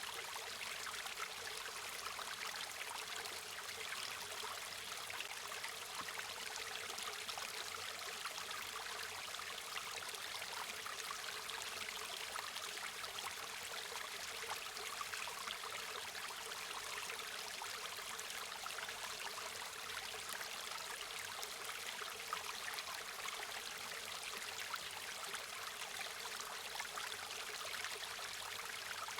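A stream of water running steadily over rocks, a continuous rushing and babbling with fine trickling detail.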